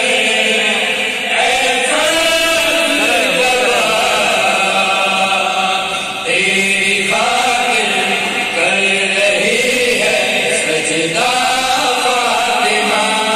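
A zakir chanting a devotional qasida in praise of Imam Hassan into a microphone, in long sung phrases.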